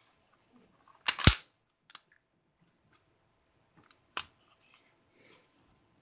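Norinco NP34 9mm pistol's hammer and trigger action clicking during a dry function check: a loud metallic double snap about a second in, a small click near two seconds, and another sharp click about four seconds in.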